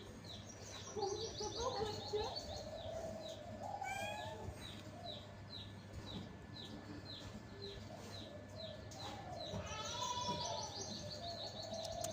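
Small birds calling: one repeats a short falling chirp about twice a second, with two bursts of rapid higher twittering.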